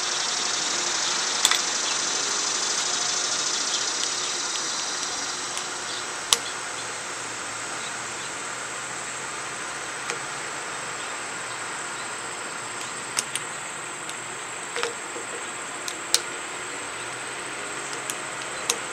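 Small screwdriver working tiny screws into a clamshell handlebar grip: a few short sharp clicks scattered through, over a steady background hiss with a high drone that fades about five seconds in.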